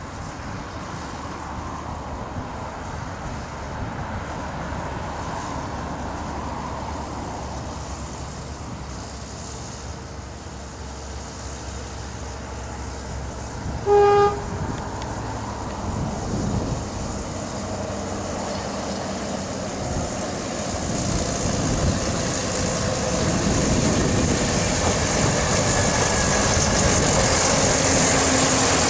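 Narrow-gauge diesel locomotive hauling a tank wagon, its engine running steadily and growing louder as it draws near. One short horn toot about halfway through.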